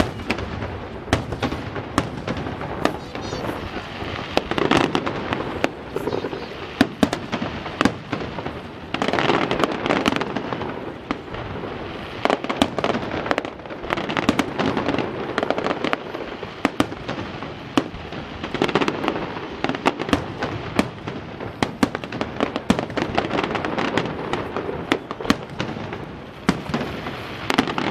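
Fireworks display finale: a dense, continuous barrage of aerial shell bursts, bangs and crackles, thickening into heavier volleys about nine seconds in and again near the end.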